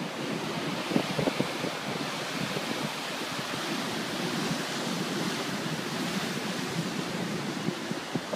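Heavy surf from a stormy sea, breaking waves and foam washing in as a steady, continuous rush, with some wind buffeting the microphone.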